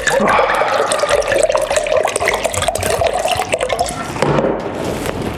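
White wine pouring from a bottle into a wine glass, its note rising slightly as the glass fills and stopping about four seconds in.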